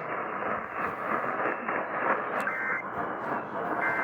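Emergency Alert System end-of-message data bursts: short two-tone digital squawks about a third of a second each, one about halfway through and another at the end, over steady radio hiss.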